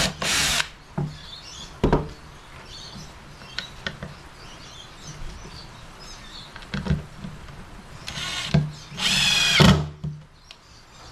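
Power drill driving screws into pallet wood in short bursts: one right at the start, then two close together about eight and nine seconds in, with a few knocks between.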